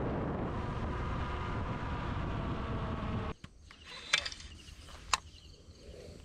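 Motorcycle on the move: engine and wind noise on the microphone, which stops suddenly about three seconds in. After that comes a much quieter outdoor stretch with a thin insect buzz and two sharp clicks about a second apart.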